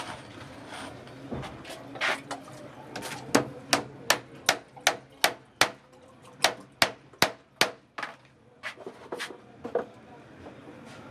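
Hammer striking wood in a steady run of about a dozen sharp blows, two to three a second with a brief pause midway, then a few lighter taps near the end.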